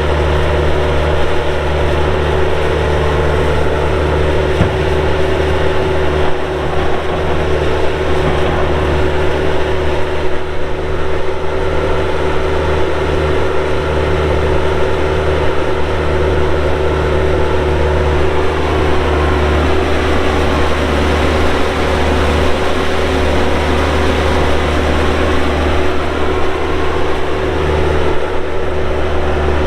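Bobcat A300 skid steer's pre-emissions Kubota diesel engine running steadily under the operator, a constant drone with a steady whine on top and small shifts in pitch midway.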